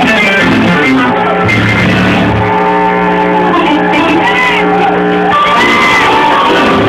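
Loud live church band music: electric guitar and long held bass notes, with voices raised over it.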